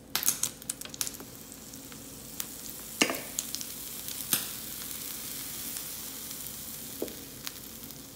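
Waffle batter sizzling as it is ladled onto the hot buttered plates of a waffle iron at medium heat: a steady hiss that builds about a second in, with a few sharp clicks.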